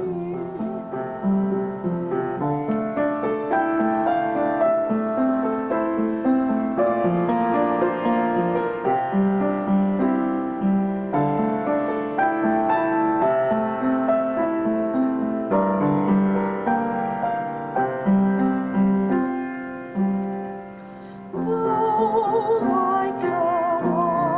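Piano music, a steady run of notes; after a brief pause near the end, a woman's voice with vibrato starts singing over the piano.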